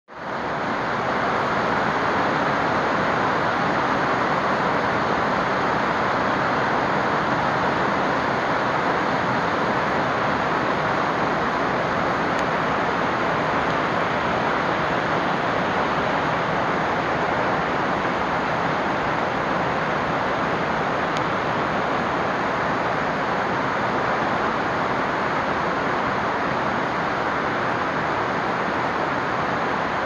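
Heavy rain falling on the fabric roof and skylight dome of a 30-foot Pacific Yurt, heard from inside: a dense, steady hiss.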